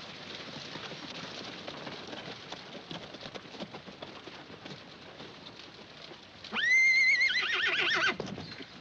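Hooves of several horses clopping on a dirt street. About six and a half seconds in, a horse gives a loud whinny with a rising start and a trembling, wavering pitch that lasts about a second and a half.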